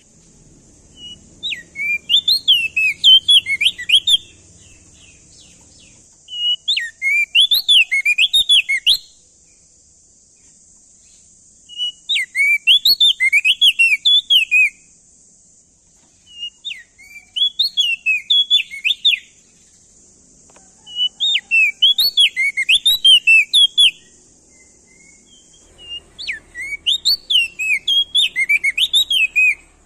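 Crested white-eye (opior jambul, also called prenjak daun) singing in six phrases of two to three seconds each. Every phrase is a quick run of whistled notes sweeping up and down, with pauses of a few seconds between phrases. A faint steady high hiss lies under the song.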